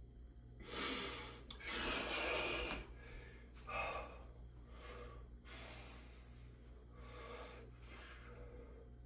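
A man breathing heavily while flexing and holding bodybuilding poses, worn out from a workout. Two long, loud breaths come in the first few seconds, then shorter, quieter breaths about once a second.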